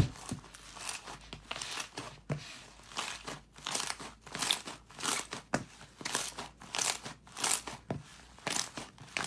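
Slime being squeezed and pressed by hand, making a run of short crackling crunches, roughly one or two a second, with a sharp click right at the start.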